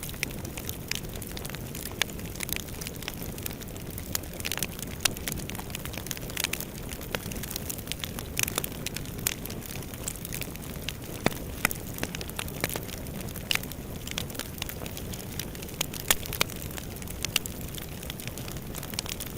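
Fire burning in a fireplace: a steady low rumble of flames with frequent, irregular sharp crackles and pops.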